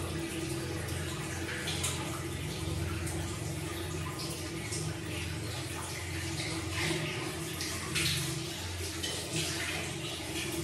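Tap water running into a bathroom washbasin, with splashing as water is scooped up by hand and splashed onto the face, louder a couple of times.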